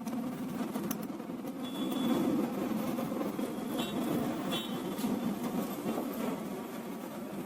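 A steady low buzzing hum, with a few faint clicks and brief high squeaks over it.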